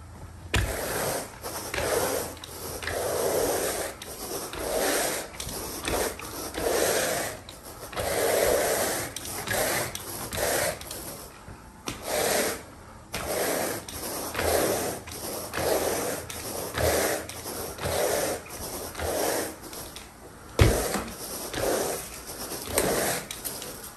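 Carpet rake dragged through carpet pile in repeated scraping strokes, about one a second, agitating pre-spray to loosen soil. There are short pauses twice, and a sharp knock about twenty seconds in.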